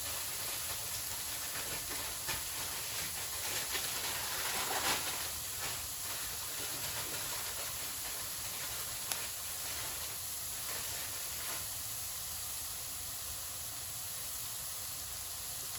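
Grated vegetables sizzling steadily in hot oil in a pan on high heat, with a few light clicks of the stirring utensil in the first half.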